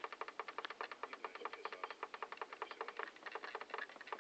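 Rapid, even clicking, about eight to ten sharp clicks a second, like fast typing on a keyboard.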